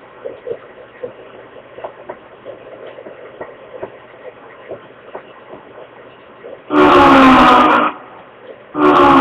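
Faint background noise with light ticks, then a loud, strange sound of several pitches held together, heard twice near the end for about a second each time.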